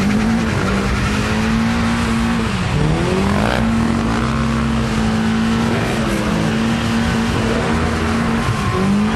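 Car doing a burnout: engine held at high revs while the tyres spin and squeal on the tarmac. The revs drop briefly and climb back again three times.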